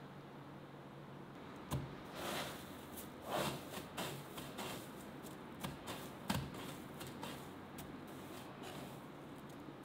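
Dry breadcrumbs rustling and crunching as a hand presses and turns a battered chicken strip in them. It comes as short, uneven spells of crackling with light taps, starting after a faint hum about two seconds in.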